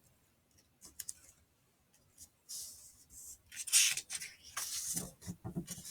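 Paper rustling and sliding as a page of a picture book is turned, after a couple of small clicks about a second in; the rustle comes in bursts and is loudest in the middle.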